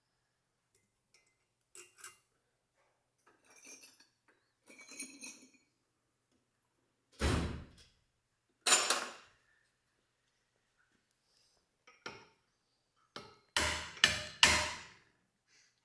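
Small metal valve-train parts clinking while valve springs and keepers are fitted to a Kawasaki Z1 cylinder head, then sharp hammer taps on the tops of the valve stems to seat the keepers, the loudest being a quick run of three near the end.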